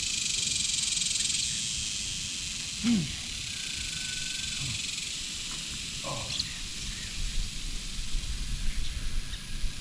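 Steady high-pitched insect buzz, with a brief low falling sound about three seconds in.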